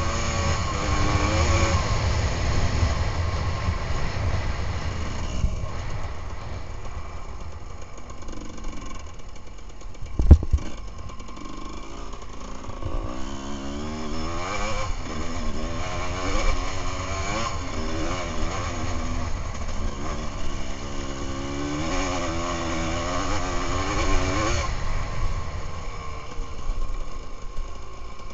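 Enduro dirt bike engine running under way, its pitch rising and falling with the throttle. A single loud thump comes about ten seconds in.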